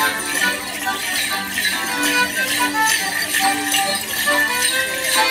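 A Morris dance tune played on an accordion, with bells jingling in time with the dancers' steps, about twice a second.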